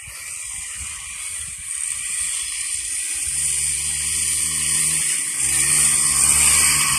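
ATV (quad bike) engine running and getting steadily louder as the quad comes closer, over a steady high hiss. The engine note dips out briefly about five seconds in.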